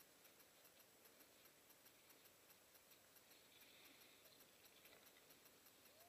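Near silence: a faint steady hiss with a light, fast, even ticking.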